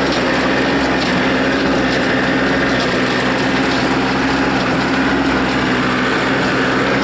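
Tractor engine running steadily at working speed, driving a PTO-powered small square baler that is baling hay.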